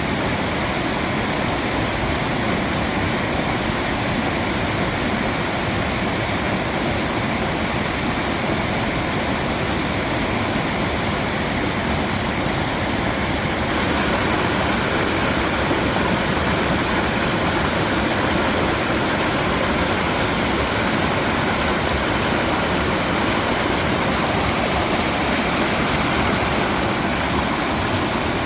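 Mountain stream water rushing and splashing over rocks in a steady, even wash of noise, turning a little brighter and louder about halfway through.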